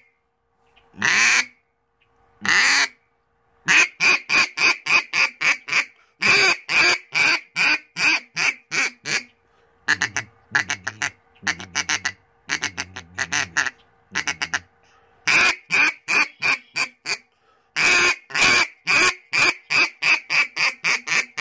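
HOBO duck call blown in a full calling sequence that strings the quack, comeback call and feeding call together. It opens with a couple of long single quacks, then goes into runs of quick, short quacks at about four a second, with a softer, faster chattering run in the middle.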